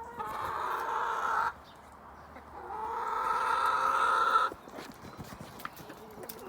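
A domestic hen giving two long, drawn-out calls, each lasting about one and a half to two seconds with a short gap between them, followed by faint irregular ticks.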